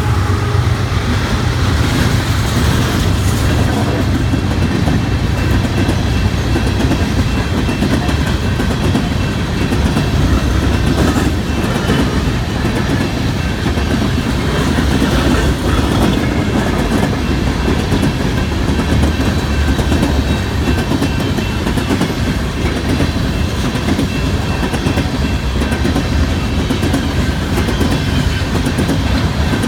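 BNSF empty coal train passing at close range: a steady hum from the diesel locomotives for the first few seconds, then the empty coal cars rolling by with a continuous clatter of wheels over the rails.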